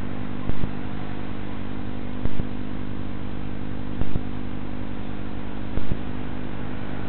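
Steady electrical hum and hiss from a CCTV camera's audio, broken by a short sharp click at very even intervals, about every second and three-quarters.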